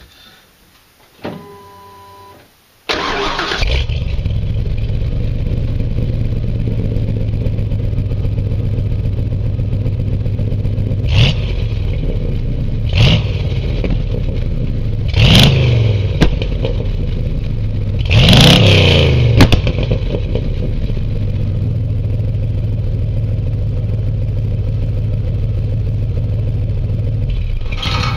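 1993 Ford F-250's 460 big-block V8 breathing through homemade single-chamber mufflers. It starts about three seconds in and settles into a loud steady idle. It is blipped four times in the middle, the last rev the longest, then drops back to idle.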